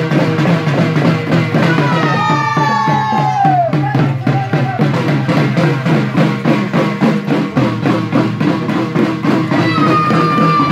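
Hand-held drums beaten in a fast, steady dance rhythm, with long high calls that slide down in pitch about two seconds in and again near the end.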